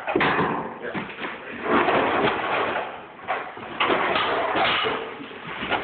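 Plaster being broken and pulled off wooden lath: irregular scraping and crumbling, with knocks as pieces come away and fall.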